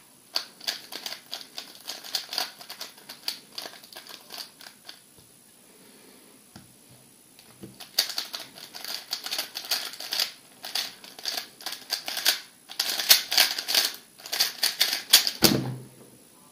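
MoYu RS3 M 2020 plastic 3x3 speedcube being turned very fast: dense rattling clicks of the layers. The clicking comes in a run of about five seconds, then a pause of a few seconds, then a longer, louder run of about seven seconds that ends with a thud near the end.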